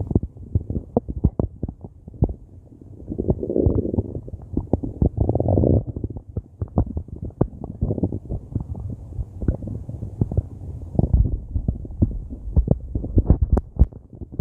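Stomach growling: irregular gurgles and sharp pops, with two longer rumbles about four and five and a half seconds in.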